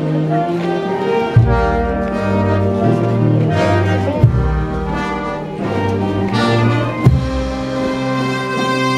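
Brass band playing processional music: sustained brass chords over low bass notes, with a loud drum stroke about every three seconds.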